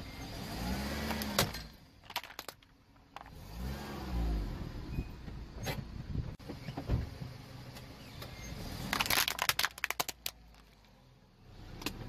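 Car engine rising and falling in pitch twice as the car creeps forward and back over a hard plastic toy soldier figure. Sharp plastic cracks and snaps as the figure breaks under the tyre, with a dense run of cracking near the end.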